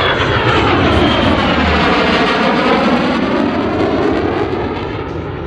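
A USAF F-35A's single Pratt & Whitney F135 turbofan heard as the jet flies past: loud, rushing jet noise whose tone sweeps down and back up as it passes, easing slightly near the end.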